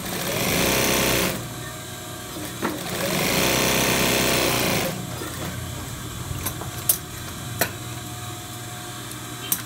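Industrial sewing machine stitching a pocket facing onto a pocket lining in two short runs, each speeding up and slowing down. After the runs stop there are a few sharp clicks.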